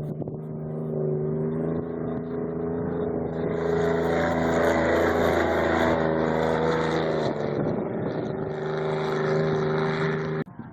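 Off-road race vehicle's engine running hard at steady high revs, growing louder as it comes past, with a shift in pitch midway, then cutting off abruptly near the end.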